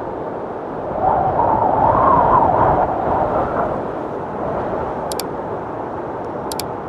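Rushing air and propeller noise of an FPV drone in fast flight, swelling about a second in and easing again. Near the end come two sharp mouse-click sound effects.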